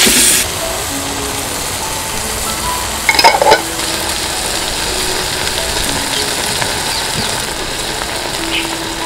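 Soya meat chunks sizzling steadily as they fry in a clay pot, stirred with a spoon at the start, with a short louder burst of stirring about three seconds in.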